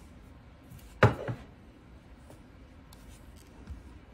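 A Rowenta steam iron being taken up and set down on the quilt block: a sharp knock about a second in, a lighter knock just after, then a few faint taps as it is handled.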